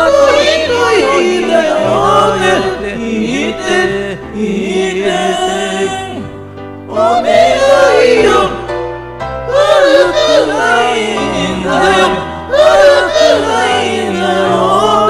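Several voices singing together in harmony over music with a low bass line that steps from note to note. The music dips briefly about six seconds in.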